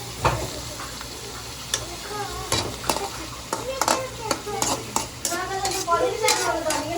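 Chicken frying in hot oil with a steady sizzle, stirred with a spatula that scrapes and knocks against the pan many times.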